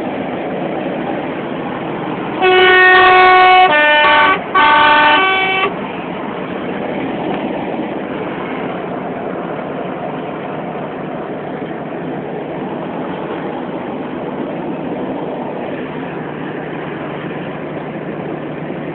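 Lorry air horn sounding three blasts about two to six seconds in, each held about a second, the notes changing from one blast to the next. Under it, steady engine and road noise inside a moving vehicle.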